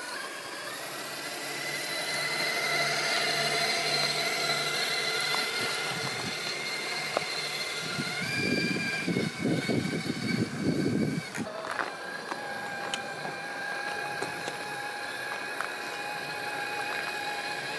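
Axial SCX6 1/6-scale RC crawler's electric motor and drivetrain whining steadily as it creeps up a rocky dirt trail, the pitch stepping up slightly about eight seconds in. For about three seconds around the middle, a rough crunching scrabble of tires on dirt and stones comes in. Near twelve seconds the whine changes suddenly to a different steady pitch.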